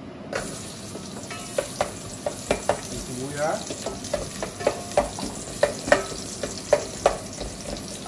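Chopped onions go into hot oil in a metal pot and sizzle steadily from about a third of a second in. Over the sizzle, a spatula scrapes and taps them off a bowl and against the pot in a string of sharp clicks and knocks. The pot is not yet quite hot enough, so the onions are frying gently.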